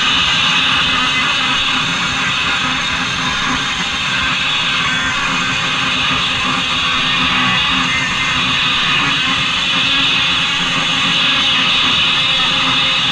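Live hardcore punk band playing, led by a steady wall of heavily distorted, fuzzed electric guitar in a rough, lo-fi recording.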